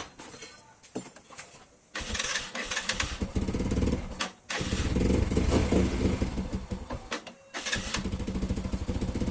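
A few clicks, then a small motorcycle engine starts about two seconds in and runs with rapid firing pulses. It drops out briefly twice and picks up again each time. It is running through a newly replaced exhaust header pipe.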